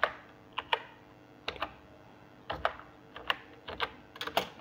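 Computer keyboard keys clicking as a word is typed: single keystrokes and short runs of two or three, with brief irregular pauses between them.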